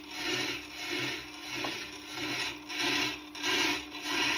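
Diamond truing tool on a Tormek grinding wheel rasping as it cuts into the turning stone, swelling and fading in a steady rhythm about every 0.6 s. The faint steady hum of the machine's motor runs underneath. The louder cutting means the diamond is now taking material off and reaching fresh stone.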